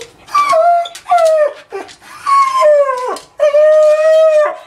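Beagle mix dog howling at a door: four drawn-out howls, the last the longest and held steady. It is stress howling, of the kind she shows when a family member leaves the house.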